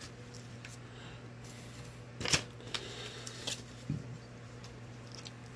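A few short, crisp rustles and clicks from paper novelty banknotes being handled, the loudest about two seconds in, over a steady low electrical hum.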